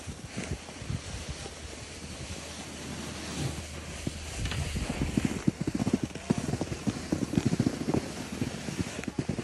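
Wind buffeting the phone's microphone outdoors on a snow slope: an even rushing noise at first, then irregular, heavier low rumbling gusts from about halfway through.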